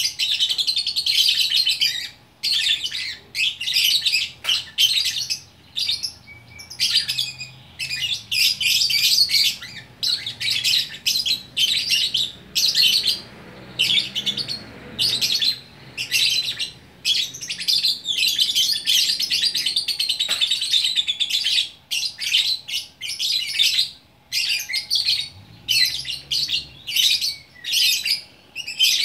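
Lovebird singing in long, fast runs of high chattering, twittering notes broken by short pauses. This is the continuous 'gacor' song that lovebird keepers prize.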